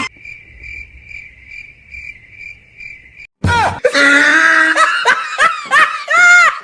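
Cricket chirping sound effect: a steady high chirp pulsing about three times a second, cutting off about three seconds in. Then loud high-pitched laughter, its pitch swooping up and down.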